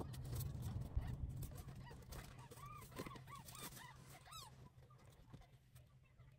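Six-day-old newborn kittens mewing: a quick run of short, high, arched squeaks, strongest between about two and a half and four and a half seconds in, over a low hum and faint rustling that fade away toward the end.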